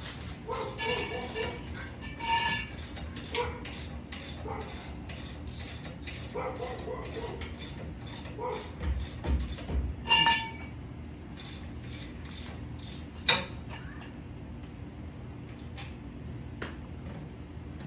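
Hand ratchet wrench clicking steadily, about three clicks a second, as a bolt is turned, with a few ringing metal clinks of tools and parts. The clicking stops about thirteen seconds in, just after a sharp metallic clink.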